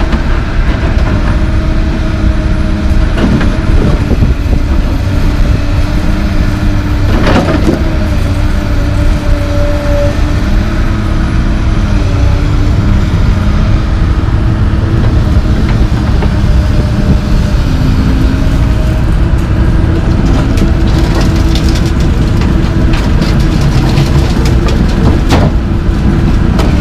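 Komatsu PC220LC track excavator's diesel engine running steadily under load with a steady whine over its rumble, and a few sharp clanks. In the last several seconds comes a run of clattering and knocks as broken concrete sidewalk is dropped from the bucket into a steel dump truck box.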